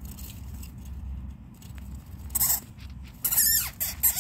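Hamster eating and shifting in wood-shavings bedding: faint crunchy chewing, then from about two seconds in several loud crackling scrapes and rustles in quick succession.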